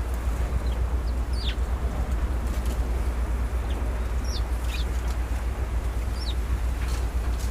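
Small birds giving short, high chirps, about seven scattered over several seconds, over a steady low rumble.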